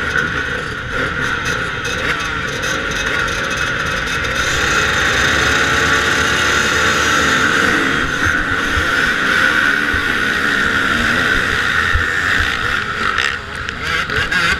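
Kawasaki motocross bike's engine heard from an onboard camera at a race start, held high at first, then about four seconds in rising and falling in pitch as the bike accelerates hard through the gears, with other motocross bikes running close around it.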